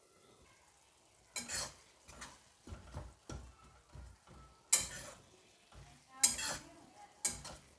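Steel spatula scraping and stirring thick, roasted onion-tomato spice masala in a metal kadhai: a string of separate scrapes after a quiet first second, with the two sharpest a little past halfway and near the end. The masala has cooked down well.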